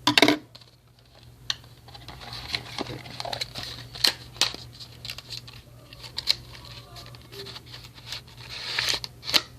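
Packaging being handled: cardboard and plastic rustling and crinkling, with irregular clicks and taps, over a steady low hum.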